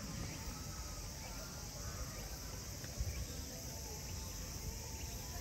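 Steady high-pitched buzzing of insects.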